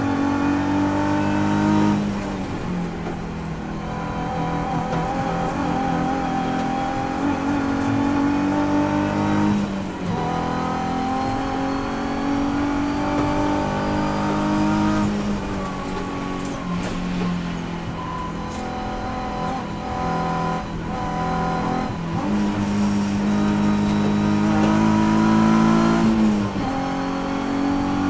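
Nissan 350Z race car's V6 engine heard from inside the cabin, rising in pitch as it pulls through the gears. The note drops sharply several times at gear changes or lifts for corners.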